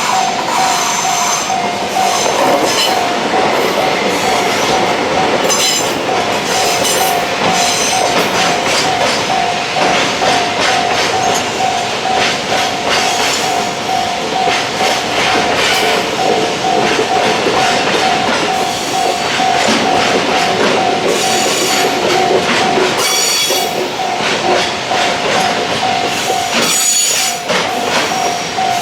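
Japanese railroad crossing alarm ringing in a steady, evenly repeating tone while a freight train rolls through, its wheels clattering over the rail joints. Short high-pitched wheel squeals come through in the last third.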